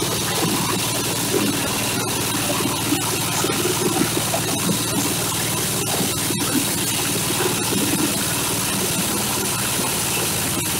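Small red single-cylinder diesel engine running steadily, driving a corn husker-sheller that is husking and shelling whole corn ears as they are fed in, with a dense mechanical noise over the engine and scattered small ticks.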